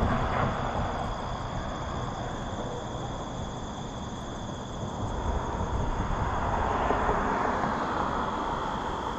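Insects trilling steadily in high, even tones, over a low rumble and a broad rush of noise that swells about five seconds in and eases near the end.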